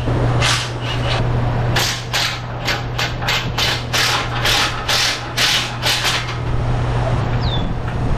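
Hand-tool work on a car's exhaust: about fourteen short, sharp metallic strokes, two to three a second, stopping about six seconds in, over a steady low hum. A brief falling squeak comes near the end.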